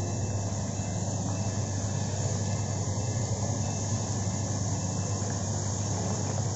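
Thin wheat-flour papdi crisps sizzling and bubbling steadily as they deep-fry in hot oil in a steel kadhai, with a steady low hum underneath.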